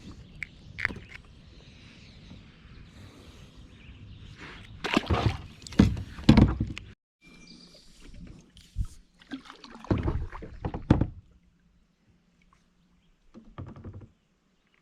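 Water sloshing and splashing with knocks around a fishing kayak, in a few loud irregular bursts. The sound cuts off suddenly about halfway, then comes back as a second burst before going nearly quiet.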